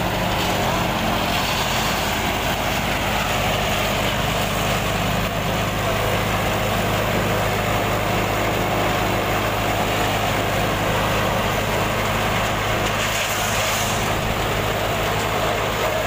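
Amar Toka chaff cutter running steadily under a constant engine drone, chopping dry maize stalks as they are fed in by hand.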